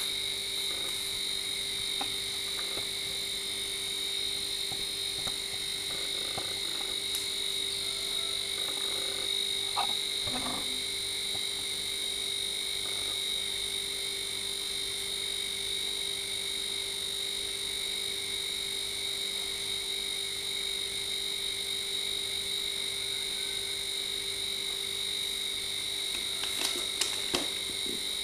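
Steady chorus of calling animals, a constant high-pitched drone that never breaks. A few light knocks come near the end as the cardboard parcel is handled.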